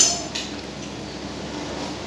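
A sharp metallic clink of a utensil against a dish, ringing briefly, then a second lighter clink a moment later, over a steady low hum.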